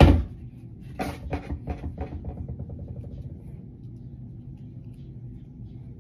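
A loud bang, then about a second later a quick run of smaller knocks and rattles that die away, over a steady low hum.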